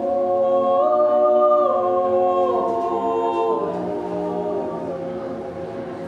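Small mixed-voice a cappella choir singing sustained chords, moving in slow steps from one chord to the next and gradually growing softer.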